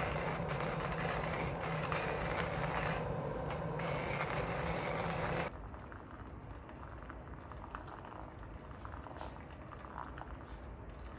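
Hand-cranked coffee grinder crunching beans, set finer than intended so the grind came out too fine. It cuts off abruptly about halfway through, and faint taps and rustles follow as the grounds are knocked out into a glass pour-over dripper.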